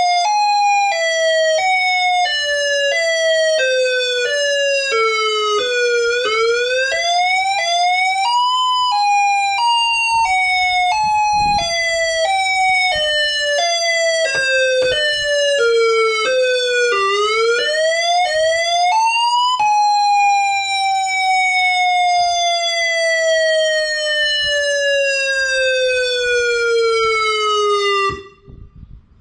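Ion Pathfinder electronic warning siren sounding its alternate wail. The pitch falls and rises in small steps, about two a second, through two cycles. In the last third it glides smoothly down in pitch as the signal winds down, then cuts off abruptly.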